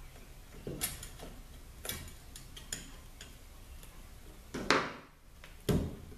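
Light metallic clicks and taps of a snap ring being worked by hand into its groove in a 4L80E overdrive clutch housing, with two louder knocks about a second apart near the end.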